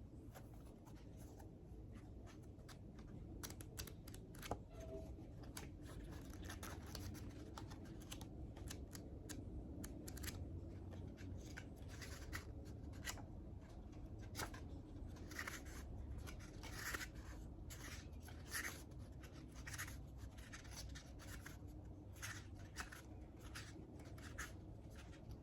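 Quiet rustling and scattered light taps of paper and cardboard being handled: a tarot deck's guidebook taken from its box and leafed through. A low steady rumble runs underneath.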